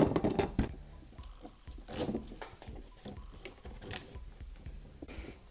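Hard plastic crate knocking and clattering as it is set down on an e-bike's metal rear rack, with another knock about two seconds in. Scattered small clicks and rustling follow as straps are worked under the rack.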